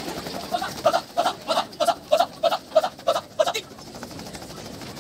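A group of young scouts chanting short syllables in unison as a yel-yel, about three a second, stopping about three and a half seconds in.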